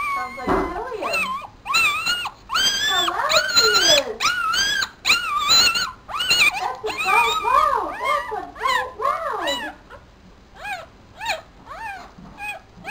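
Four-day-old papillon puppy crying: a long run of high-pitched squeals that rise and fall in pitch, packed close together, then thinning to shorter, fainter cries over the last few seconds.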